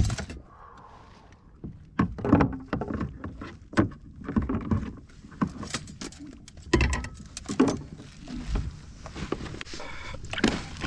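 Irregular knocks, clicks and thumps of fishing gear and a freshly caught halibut being handled on a plastic fishing kayak, with a metal clip clinking now and then.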